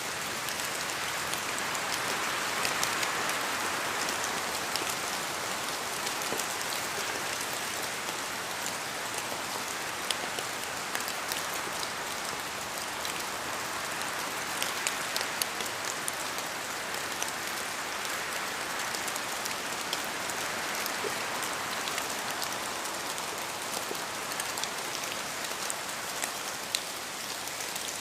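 Steady rain falling, with many individual drops pattering on a surface over an even hiss.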